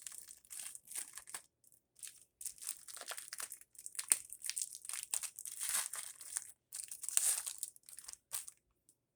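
Crinkly plastic wrapping being handled and crumpled, in irregular bursts of rustling that stop near the end.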